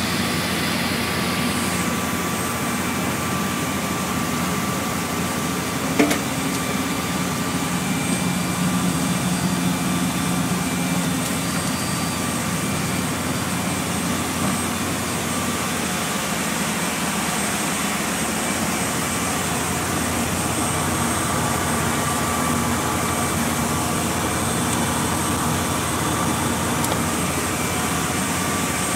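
A boat's engine running steadily, a constant drone with a wash of hiss over it. A single sharp knock about six seconds in.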